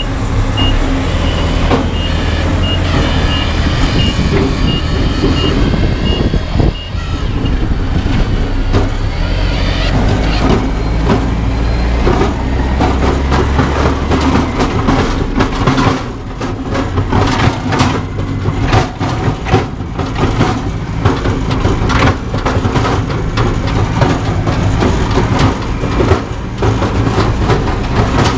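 Zetor 7011 tractor's diesel engine running under load. For the first several seconds a high beep repeats about twice a second, like a reversing alarm. From about halfway on, a dense rattling clatter of knocks is heard over the engine.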